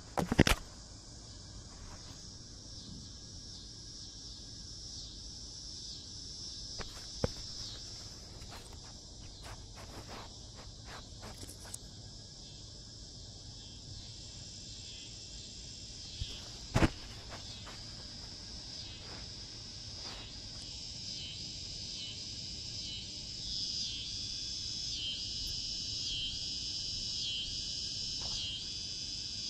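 Outdoor insect chorus, a steady high buzz that swells and pulses rhythmically in the second half. A few sharp knocks cut through it, the loudest near the start and about halfway through.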